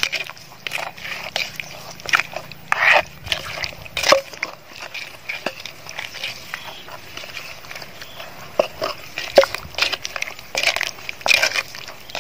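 Wooden pestle pounding and mashing wet shredded green papaya salad in a mortar: a string of irregular knocks and squelches, roughly one or two strokes a second.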